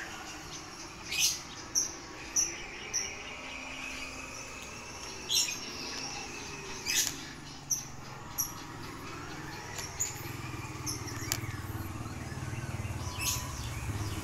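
Birds chirping now and then in short, sharp calls. From about halfway a low motorcycle engine hum builds and grows steadily louder as it approaches.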